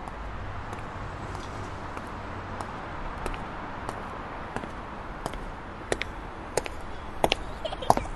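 Steady low rumble and hiss of ambient noise, with sharp clicks or knocks that start sparse and come thicker and louder over the last few seconds.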